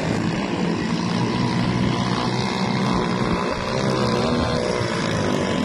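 Quad bike (ATV) engine running as it rides over loose sand and stones, its pitch wavering up and down around the middle.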